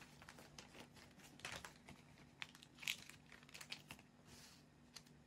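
Faint rustling of pattern paper with scattered light clicks and short scrapes, as a ruler and pencil are handled on it while lines are measured and drawn.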